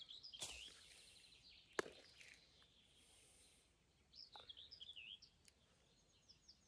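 Faint songbird song: short whistled, warbling phrases near the start, again past the middle and near the end. Between them come soft rustles and one sharp tick, fitting crumbled soil clods being handled and dropped.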